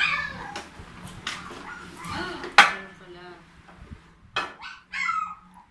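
An air fryer's cooking basket being pulled out of its drawer and set down on a tabletop: a run of hard clicks and clatter, with one sharp knock about two and a half seconds in.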